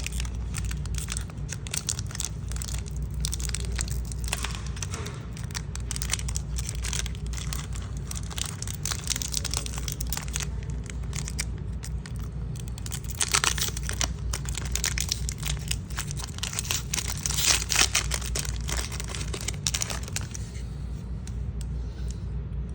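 Wrapper of a 1992 Donruss baseball card pack being torn open and crinkled in the hands: dense crackling, with louder tearing bursts about halfway through and again later. The crinkling stops about two seconds before the end, over a steady low hum.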